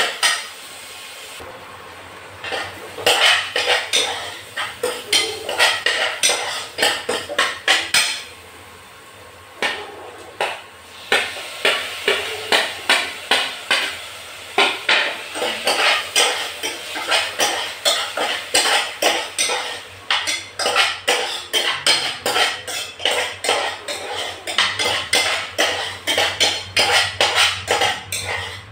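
Steel spoon scraping and clinking against a small steel saucepan while stirring a cooking mixture, in quick repeated strokes that stop briefly twice in the first ten seconds.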